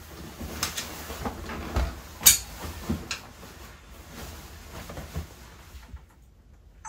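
Fabric rustling and handling noises as a suit jacket is pulled on, with scattered knocks and one sharp click a little over two seconds in.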